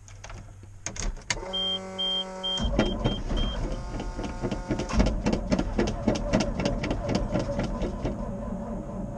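Starter cranking the 1988 GMC 6000 truck's engine off a booster pack for about six seconds in a fast, even rhythm without the engine catching: a hard start. About a second and a half in, a buzzing tone and five short high beeps sound just as the cranking begins.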